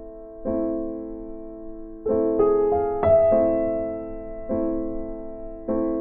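Background piano music: slow, gentle chords, each struck and left to ring and fade before the next.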